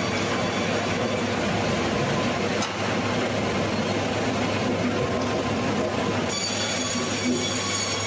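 Sawmill band saw and its machinery running with a steady loud noise and thin high whining tones. About six seconds in, the sound changes abruptly and new high whine tones come in.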